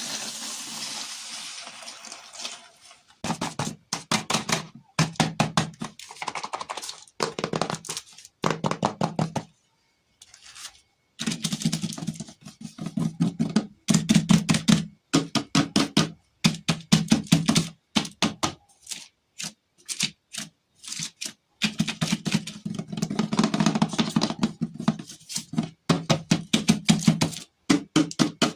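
Hands handling small toys and their packaging: a crinkling rustle at first, then repeated bursts of rapid tapping and clicking, each burst lasting a second or two.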